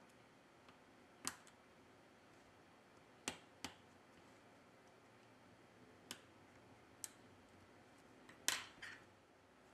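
Scattered small sharp clicks and taps of a plastic spudger and fingers pressing on the phone's circuit board and metal shields, about seven in all, the loudest about eight and a half seconds in.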